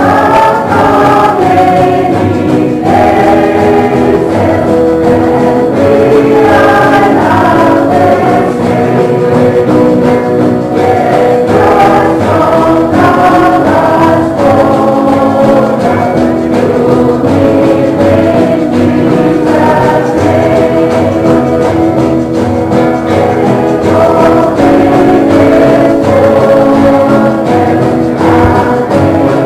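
Music laid over the slideshow: a choir singing a Christian hymn, steady and unbroken.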